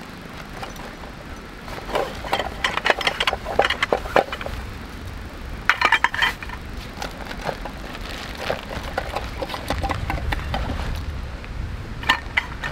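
Camping gear being unpacked from a backpack: fabric rustling, with bursts of small clinks and knocks of hard items against each other and the wooden bench, busiest about two seconds in, again around six seconds and briefly near the end.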